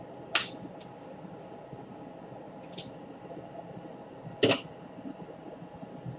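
Steady low hum with a few short, sharp bench-work noises as the power jack is worked off the laptop motherboard. One comes about half a second in and the loudest about four and a half seconds in.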